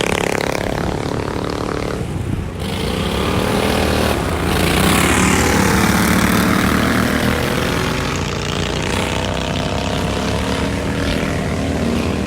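Racing ride-on lawn mower engines running hard, their pitch rising and falling as they race, loudest about five seconds in as one passes close.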